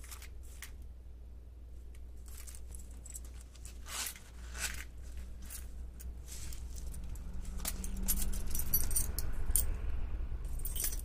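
Keys and metal fittings of a zippered key case being handled: a string of light clicks and rattles as the case is unzipped and the keys clink on its metal hooks.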